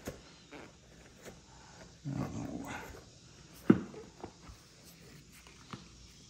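Motorcycle seat being handled and pressed onto the frame: a rustling scrape lasting about a second, then one sharp knock, with a few light clicks around it.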